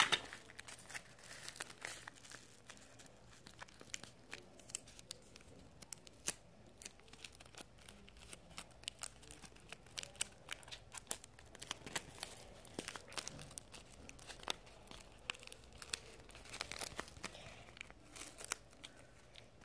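Paper and clear packing tape crinkling and crackling as hands squeeze and turn a taped paper squishy: many small, sharp, irregular crackles, faint throughout.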